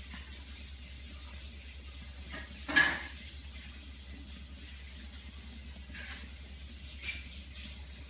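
A hand patting a baby's back to burp her, over a steady low hum, with one short sharp sound about three seconds in and a fainter one near the end.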